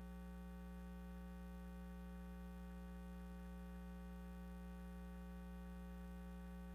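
A quiet, steady low hum of several held tones that does not change at all.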